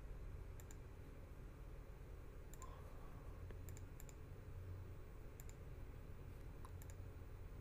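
Faint clicks of a computer mouse and keys, scattered irregularly a few seconds apart, over a low steady hum.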